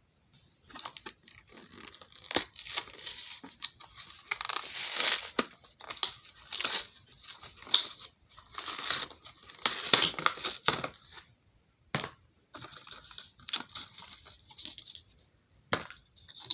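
Plastic being handled: crinkling and tearing in irregular bursts, with a few sharp clicks between them.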